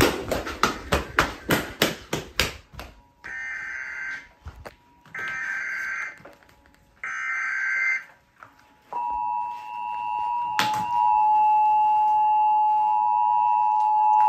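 Emergency Alert System tones from a TV broadcast: after a quick run of clicks, three roughly one-second bursts of harsh, rasping digital header data announce a new alert, then about nine seconds in the steady two-tone EAS attention signal starts and holds, heralding a tornado warning.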